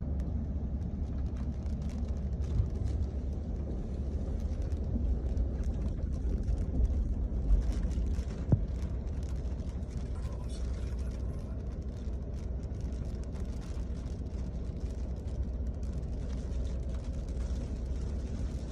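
Hurricane wind buffeting the microphone: a steady low rumble with crackling gusts, a few gusts standing out briefly.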